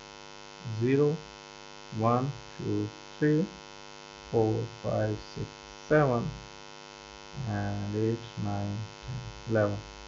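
Steady electrical mains hum with a man's voice counting digits aloud, one short word about every second.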